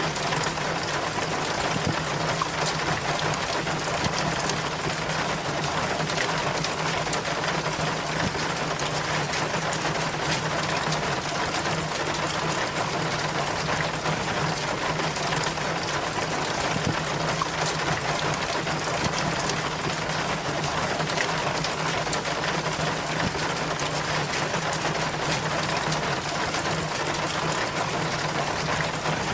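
Rainwater running and splashing steadily down a rain chain, an even, unbroken watery hiss with a faint steady low hum underneath.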